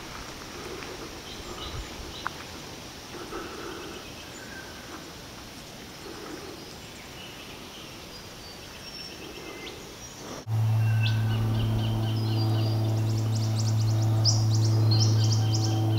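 Outdoor ambience with scattered bird chirps. About ten seconds in, a loud steady low hum starts abruptly and holds to the end, with louder, rapid bird chirping over it.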